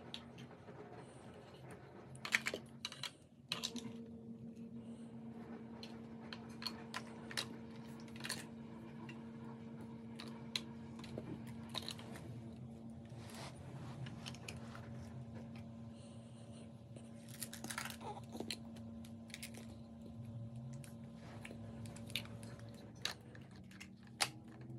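Large plastic building blocks clicking and clacking irregularly as a toddler handles and stacks them, with a few sharper knocks among them, over a faint steady hum.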